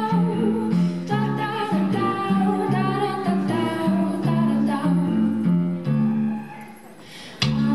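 Fusion belly dance music with a repeating bass pattern under a melody. The music drops away about six seconds in and comes back abruptly near the end.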